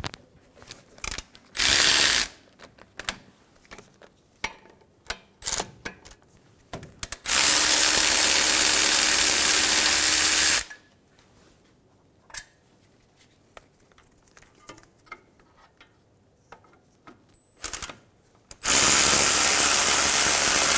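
Power ratchet with a 17 mm socket running out the brake caliper bracket bolts, in three loud runs: a short one about two seconds in, one of about three seconds, and another near the end. Between the runs come scattered clicks of the ratchet and socket.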